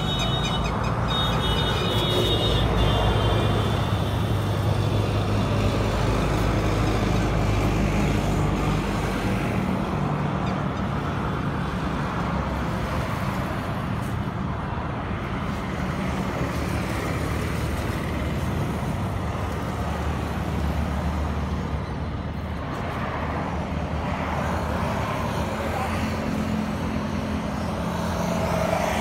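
Road traffic noise: vehicle engines running past in a steady low rumble.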